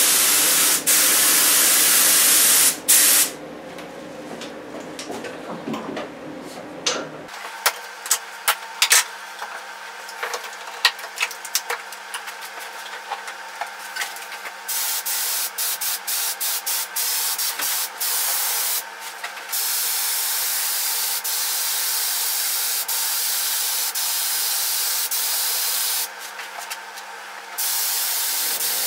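Gravity-feed spray gun hissing with compressed air as it sprays clear lacquer onto a guitar body, in long bursts of several seconds broken by short pauses. For a stretch early on the gun is quiet, with only small clicks and knocks.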